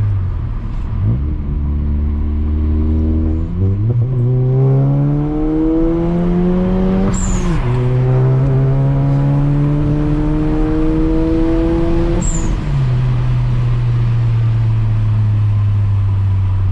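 Turbocharged VW Golf accelerating, its engine pitch rising and then dropping twice, about seven and twelve seconds in. Each drop comes with the HKS blow-off valve's short release hiss and a falling high whistle.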